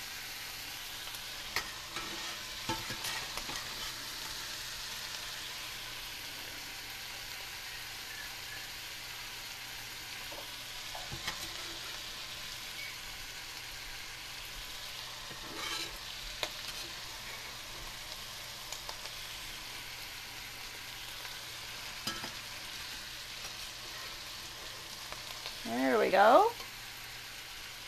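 Sausage and mushrooms in skillets on the stove sizzling with a steady frying hiss, with occasional clicks and scrapes of metal serving utensils against the pans and glass baking dish.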